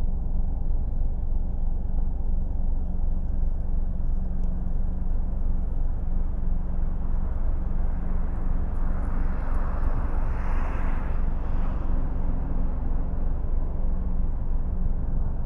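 A car driving on city streets: a steady low road and engine rumble, with a rush of noise that swells and fades about two-thirds of the way in.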